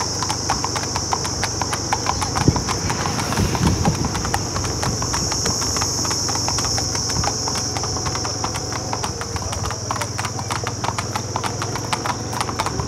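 Hooves of two Marwari horses walking on an asphalt road, a dense, uneven clip-clop of many hoof strikes.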